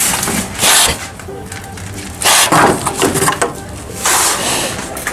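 Real pigs making noise, with three loud noisy bursts, about half a second, two seconds and four seconds in.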